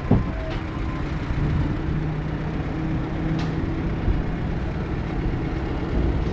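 A heavy engine runs steadily with a low rumble. A short falling whine comes right at the start.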